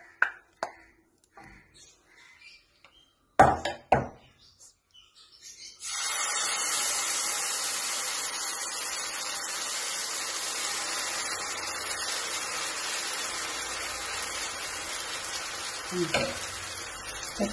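Vegetable pancake batter of puffed rice and semolina sizzling steadily on a hot pan. The sizzle starts suddenly about six seconds in as the batter goes onto the pan, after a couple of sharp knocks.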